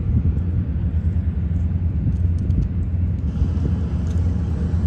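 A steady, loud low rumble of outdoor background noise, with a few faint ticks about halfway through.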